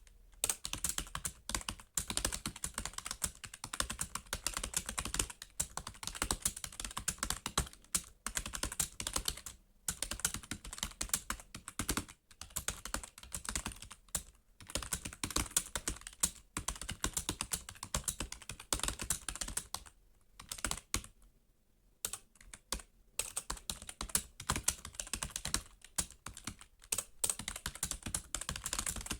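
Fast typing on a computer keyboard: a rapid, continuous stream of key clicks with brief hesitations, and one longer pause of two to three seconds about two-thirds of the way in.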